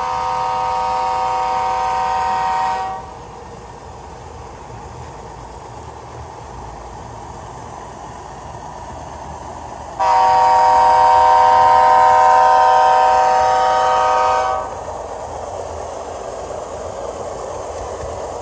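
The sound system of HO-scale Athearn Genesis Dash 9-44CW model diesel locomotives blowing a multi-chime air horn. One blast ends about three seconds in, and a longer, louder one runs from about ten seconds in to nearly fifteen. A quieter steady running sound continues between and after the blasts.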